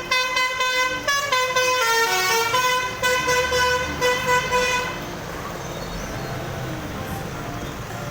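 Bus "telolet" horn, a multi-tone musical air horn, tooting a quick run of pitched notes that step down and back up. It stops about five seconds in, leaving lower traffic noise.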